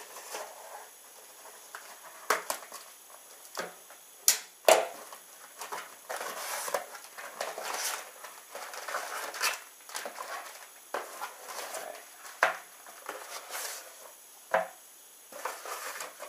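Cardboard shipping box being opened by hand: tape scraped and torn, flaps pulled open, and plastic air-pillow packing crinkling as it is lifted out. Irregular sharp knocks and snaps, the loudest about four and a half seconds in, between stretches of rustling.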